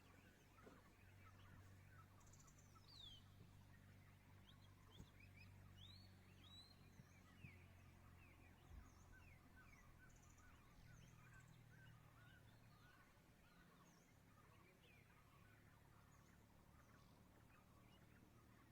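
Faint birds chirping: many short chirps and a few quick falling whistles, over a low steady hum.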